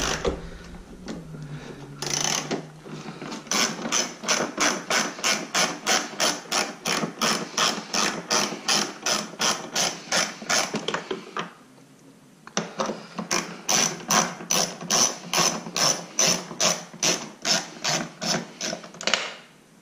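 Hand ratchet's pawl clicking in quick, even strokes, about three to four clicks a second, as a 10 mm nut is being loosened. The clicking pauses for about a second midway, then picks up again and stops shortly before the end.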